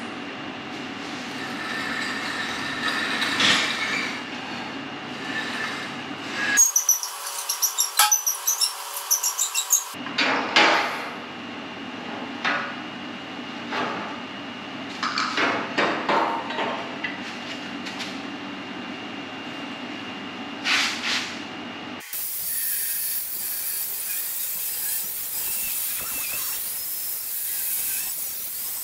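Metal clanking and knocking as steel suspension parts and a truck frame are worked on, with a quick run of sharp hammer-like strikes about seven to ten seconds in. From about twenty-two seconds an angle grinder cuts through steel tubing with a steady high hiss.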